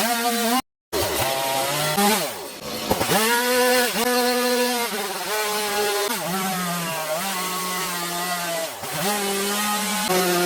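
Stihl MS 180 C two-stroke chainsaw running under throttle while carving wood, its engine pitch rising and falling as it revs, bogs and briefly drops back a few times. The sound cuts out completely for a moment just under a second in.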